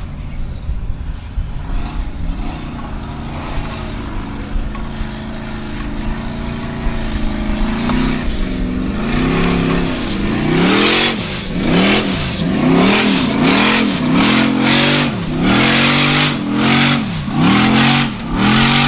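Purpose-built off-road competition buggy's engine running hard under load, then from about eight seconds in revved up and down about once a second as the throttle is worked on a steep climb. A rushing hiss of spinning tyres throwing loose sand and gravel runs along with the revs.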